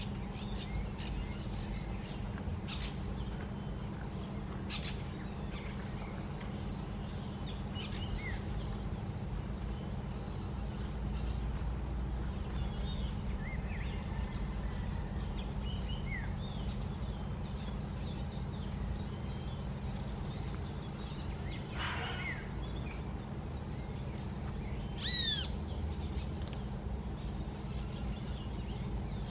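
Birds chirping and whistling here and there over a steady low rumble of background noise, with a louder run of short, downward-sweeping calls about 25 seconds in.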